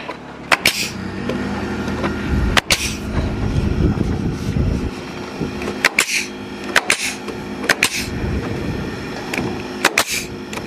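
Pneumatic nail gun firing nails overhead into tongue-and-groove soffit boards: about seven sharp shots at uneven intervals, each followed by a short hiss of exhaust air. A steady low hum runs underneath.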